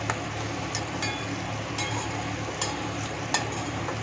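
Slotted metal spatula stirring sautéing onions, tomatoes and green chilies in a stainless steel pot, clinking against the pot about six times over a steady frying sizzle.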